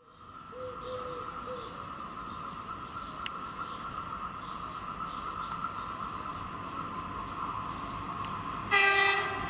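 Horn of a CP Class 592 diesel multiple unit sounding one short blast near the end, over a steady high-pitched hum as the train approaches.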